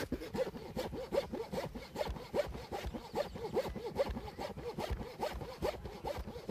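Hand saw cutting through the roof along a marked circle for an attic turbine hole, in a steady rhythm of back-and-forth strokes, about two to three a second.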